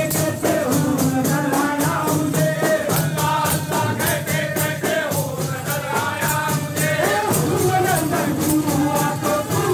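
Sufi dammal devotional music: voices chanting and singing over a fast, steady beat of jingling, rattling percussion.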